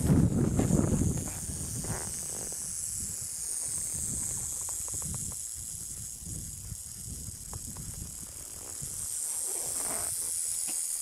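South American rattlesnake (cascavel) rattling, a steady high buzz, the sign of a stressed snake on the defensive. During the first second, wind and handling noise rumbles on the microphone.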